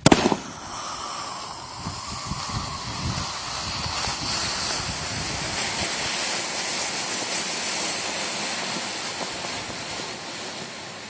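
ALSG972 white smoke grenade hissing steadily as it burns, after a sharp pop right at the start; the hiss eases off slightly near the end.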